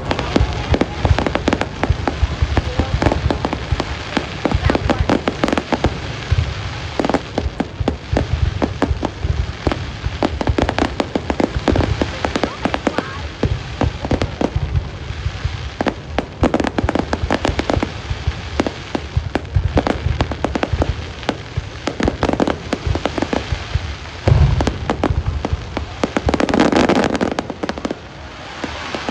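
A fireworks display going off without pause: dense, rapid crackling and popping mixed with deep booms.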